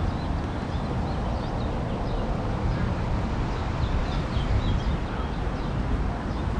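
Outdoor street ambience: a steady low rumble with small birds chirping in short, high calls through most of it.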